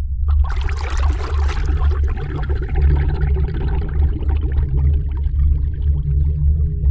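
Sound-design soundtrack for an abstract animation: a deep, steady rumble under a dense, watery crackling noise, with no melody. It builds in about the first half second and stops abruptly near the end.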